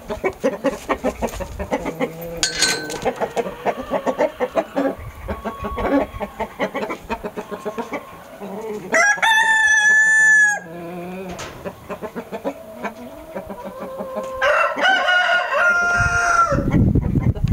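Chickens clucking rapidly, then a Satsumadori stag (young rooster) crowing twice: a loud crow of about a second and a half around nine seconds in, and a longer one near the end.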